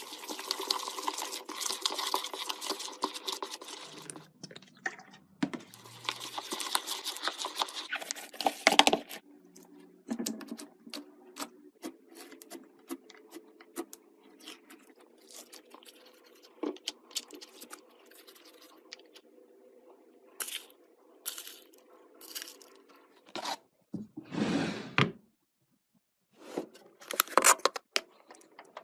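Handling sounds of slime-making: two long bursts of crackly, crunching noise early on, then scattered clicks and taps, with a few louder knocks near the end.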